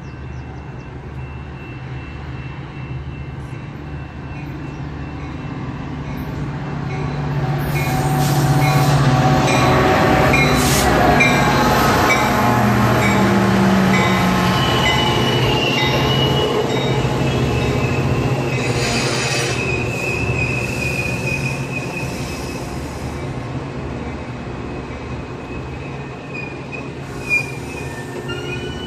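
Metra diesel commuter train of bilevel passenger cars passing close by. The rumble swells over several seconds as the train comes alongside, then eases off as the cars roll past with a thin, steady high squeal of steel wheels on the rails. There is a brief sharp knock near the end.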